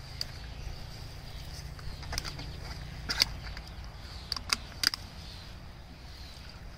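A few sharp clicks and knocks of a plastic seedling tray against the rim and sides of a plastic tub as it is dunked into kaolin clay slurry and lifted out, over a low steady rumble.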